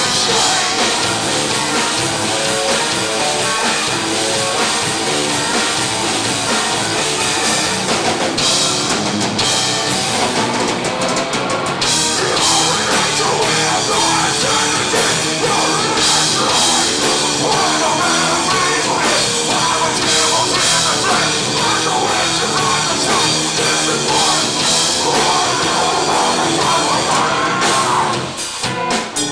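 Live metal band playing at full volume, with a drum kit and singing over a dense wall of sound, recorded on a camcorder's microphone. About a second before the end the sound thins out, leaving mostly drums.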